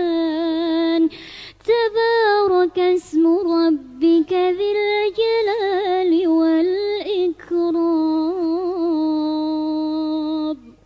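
A girl's voice reciting the Quran in melodic chanted style, with ornamented, wavering phrases. She takes a short breath about a second in and closes on a long, steady held note that stops near the end.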